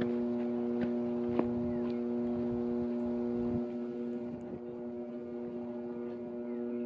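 Microwave oven running: a steady, even electrical hum, with one sharp click about a second and a half in.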